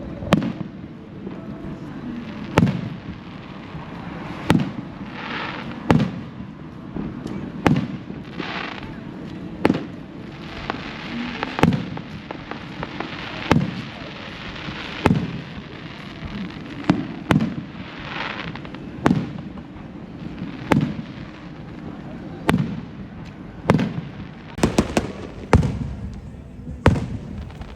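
Fireworks display: aerial shells bursting about every one and a half to two seconds, each a sharp bang with a rolling echo. Stretches of crackle come between some of the bangs, and a quick run of bangs comes near the end.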